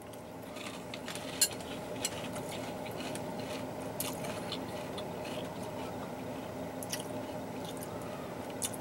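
A mouthful of Cap'n Crunch Cinnamon Roll cereal in milk being chewed: wet squishing with scattered sharper crunches. A steady low hum runs underneath.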